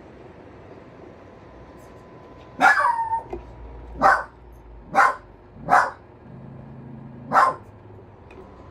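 Small dog barking five times in short, sharp barks, the first a little longer, over the steady hum of a fan.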